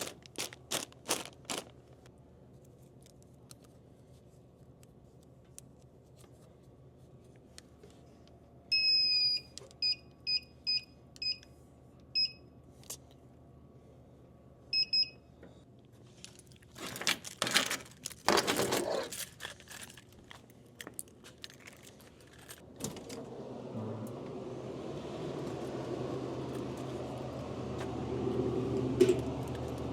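Small clicks and jingles, then a run of short high electronic beeps, a burst of rustling and handling noise, and from about two-thirds of the way in a steady low hum like a running motor.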